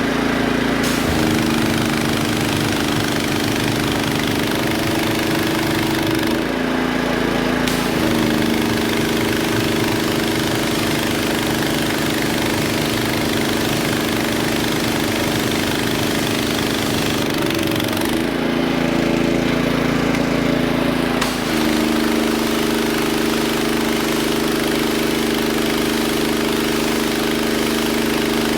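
Engine-driven hot-water pressure washer running steadily under a hissing spray. Twice the hiss stops for a second or a few seconds and the engine note shifts each time, as the spray is shut off and the machine unloads.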